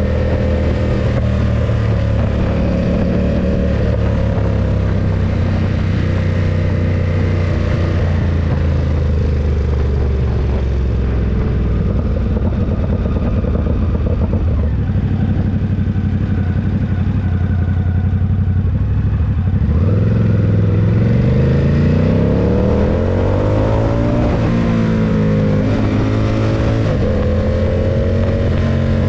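Ducati SuperSport 939's L-twin engine running at a steady cruise. About twenty seconds in it accelerates, its pitch rising and dropping back at each gear change a few times, then settles steady again.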